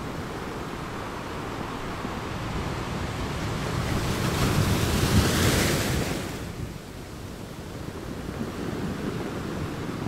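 Ocean surf: a wave builds, breaks with a loud hissing wash around the middle, and falls away again over a steady low rumble of surf.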